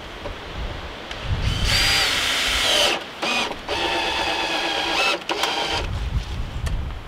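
Cordless drill whining in four runs, the longest a little over a second, as it works into timber floor framing.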